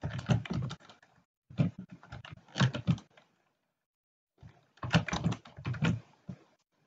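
Computer keyboard keys tapped in three quick bursts of clicks, with short pauses between.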